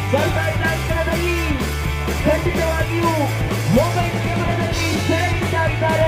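Background music with a steady beat, a heavy bass line and a gliding melodic line.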